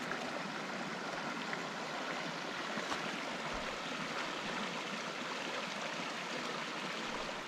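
A fell brook swollen with spring flood water rushing steadily.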